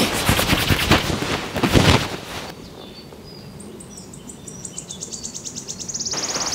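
Wind rushing over the microphone, cutting off abruptly after about two and a half seconds. After that come scattered high bird chirps and, near the end, a fast high trill.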